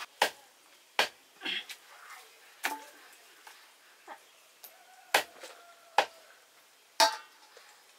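Heavy knife chopping raw broiler chicken on a wooden log chopping block: about seven sharp chops at uneven intervals, roughly a second apart, the last three the loudest.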